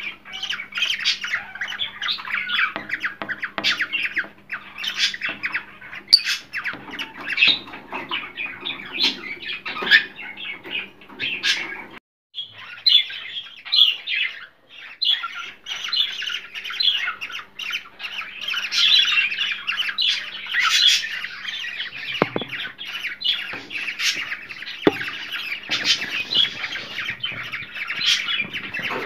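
Cockatiels chattering and squawking, many overlapping calls over a faint steady hum; the sound drops out briefly about twelve seconds in.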